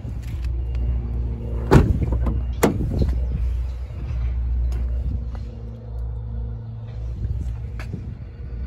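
Steady low rumble with two sharp knocks close together about two seconds in.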